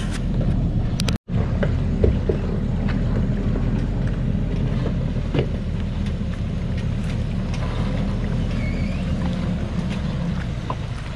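Diesel engine of a Thaco Forland truck laden with about 18 tonnes of acacia logs, running steadily at low speed as it crawls over a rocky forest track, with scattered knocks. The sound breaks off for an instant about a second in.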